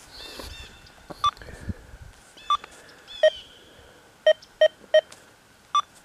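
XP Deus II metal detector giving about seven short beeps in two pitches, some lower and some higher, as its coil sweeps over a board of iron nails. Running in the FAST program, five tones, 6.8 discrimination, zero silencer and no notch, it sounds off on the iron.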